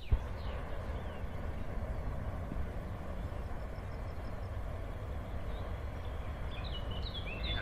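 Open-field ambience: a steady low rumble, with birds chirping near the start and again near the end. A single sharp click comes just after the start.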